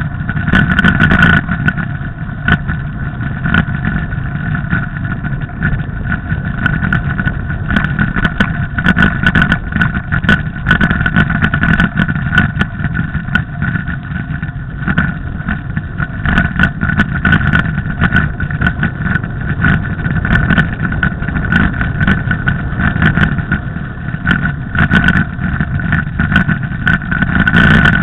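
Mountain bike rolling over a snowy road, heard through a mounted camera: a steady rumble of wind and tyre noise with many small clicks and rattles, under a steady high whine.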